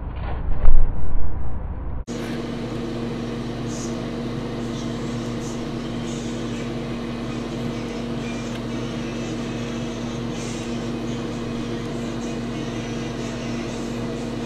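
A steady appliance hum at one pitch fills the kitchen. Over it come faint clicks and scrapes of a metal spoon pressing fried plantain slices flat on a plastic cutting board. A few heavy low thumps sound in the first two seconds.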